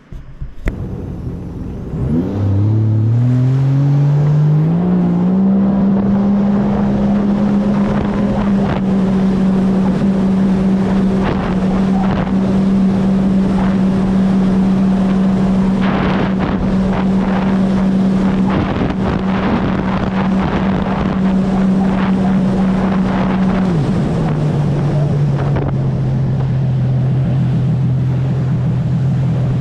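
Sea-Doo RXT-X 325 personal watercraft's supercharged three-cylinder Rotax 1630 ACE engine accelerating over the water: its note rises over a few seconds, holds steady at speed over a rush of wind and water, then drops to a lower steady pitch near the end as the throttle eases off.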